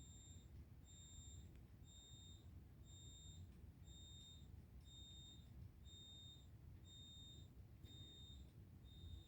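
Faint high-pitched electronic beeping, about one beep a second, from the fire alarm control panel's built-in sounder while the system is in alarm with its horn strobes disabled.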